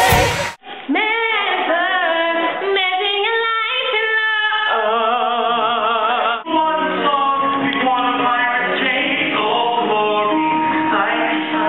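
A woman singing unaccompanied, her voice gliding up and down through wide runs. About six seconds in it cuts to different singing from a live stage performance.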